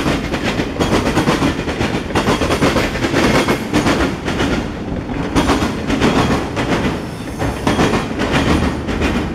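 Freight train cars rolling past: a steady rumble of steel wheels on rail, with repeated clickety-clack as the wheel sets pass over rail joints.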